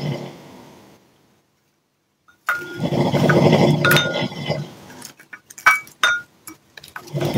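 Loud rhythmic snoring: a long rasping snore fading out just after the start, a second from about two and a half seconds in, and a third beginning near the end. Between the last two come a few short, sharp clicks and clinks.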